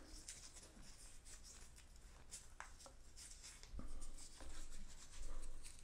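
Soft rustling of a strip of paper being rolled tightly between fingertips, with a few light ticks, growing louder in the second half.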